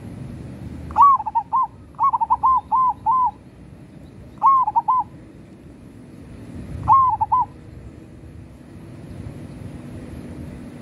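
Local zebra dove (perkutut) singing, four short phrases of quick, rolling cooing notes a couple of seconds apart.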